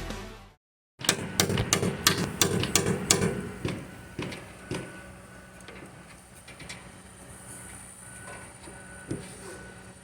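Background music fading out, then after a brief gap a quick run of knocks and clattering for about two seconds, tapering to a few scattered knocks over a low steady background.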